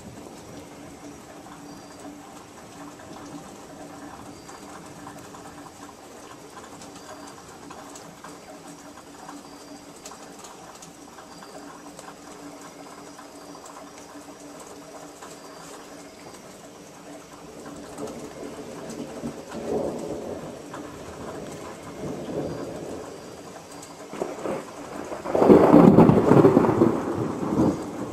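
Thunder over a steady hiss of rain: a rumble swells up about two-thirds of the way through, then a much louder peal near the end rolls and fades.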